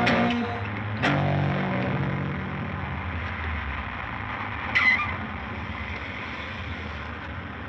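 Final chord of a rock song on guitar, struck about a second in and left to ring, slowly dying away. A short scratchy noise about five seconds in.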